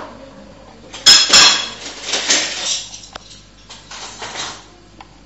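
Metal kitchen utensils clattering: two sharp, ringing clinks about a second in, followed by lighter scraping and handling noise and a few faint ticks.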